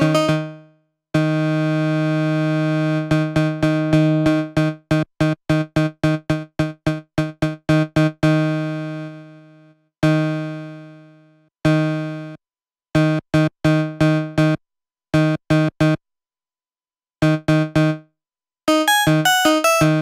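Kilohearts KHs ONE software synthesizer playing one note over and over at the same pitch while its amp envelope's sustain and release are adjusted. The note is held for about two seconds near the start, then comes as quick runs of short stabs; a few notes fade out slowly over a second or two, and there are short silences between runs.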